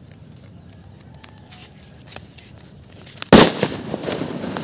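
A single firecracker going off on a concrete road: one sharp, very loud bang about three seconds in, fading out over about a second.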